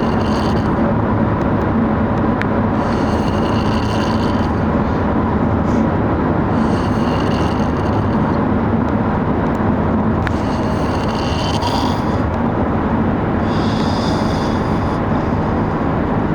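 A man snoring: a raspy, high-pitched snore about every three and a half seconds, over the steady road rumble of a moving vehicle, which is the louder sound.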